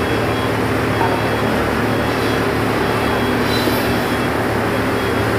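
Forklift engine running steadily as the forklift drives with a load of sawn timber on its forks, a continuous low drone.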